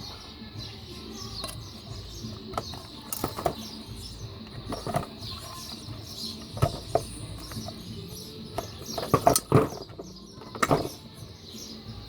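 Irregular knocks and clicks, loudest in a cluster about nine to eleven seconds in, over a steady high-pitched background hum.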